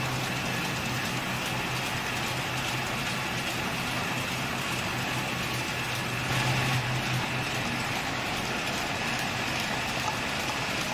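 Cup shrink sleeve labeling machine and its conveyor running: a steady mechanical hum and whir with a faint steady high tone. The hum swells briefly about six seconds in.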